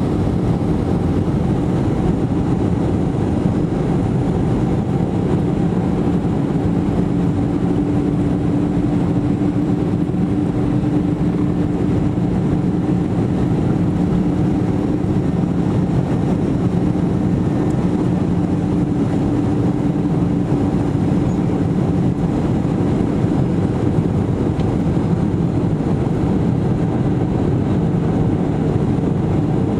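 Jet airliner engines heard from a cabin seat beside them: a loud, steady roar with a steady hum in it, strongest through the middle stretch.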